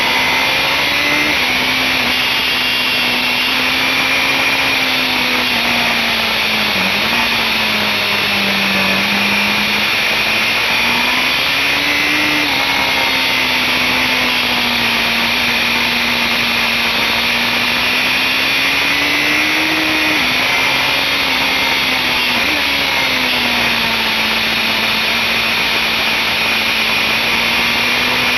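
BMW S1000RR inline-four sportbike engine heard onboard at speed, its note rising and falling as the bike is ridden through corners, with a few brief dips, under a steady rush of wind noise.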